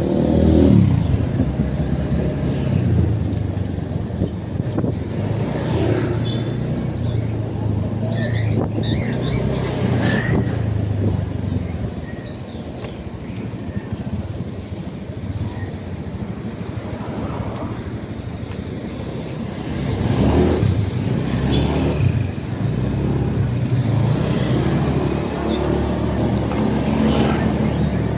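A motor vehicle engine running steadily with road traffic around it. Louder swells, like vehicles passing, come about a second in and again near twenty seconds in.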